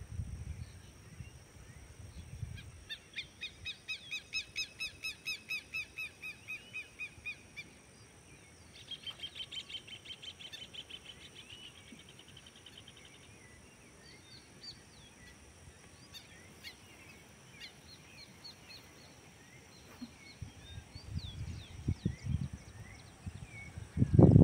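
Birds calling: a run of repeated call notes, several a second, for about five seconds, then a faster trill, then scattered short chirps. Faint steady high tones run underneath, with a low rumble at the start and again near the end.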